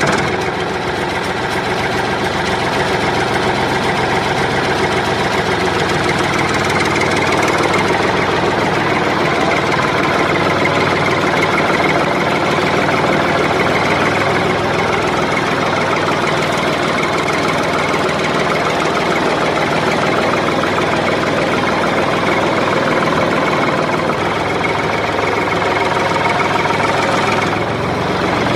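Engine sound effect: a vehicle engine idling steadily with a knocking beat. The sound is laid over the footage, since the plastic toy trucks are pushed by hand and have no motor.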